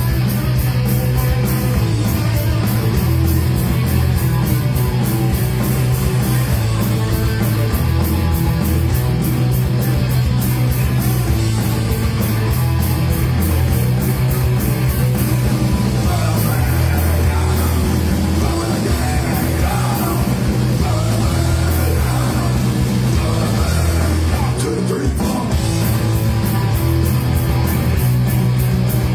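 Live rock band playing a loud, heavy song: driving bass and drums with constant cymbal hits under electric guitar.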